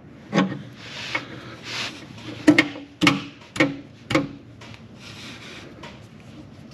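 Socket wrench with a 6-point 19 mm socket working the oil drain cap on a Cub Cadet Challenger 500 UTV engine: about seven short metallic clicks and rasps over the first four seconds.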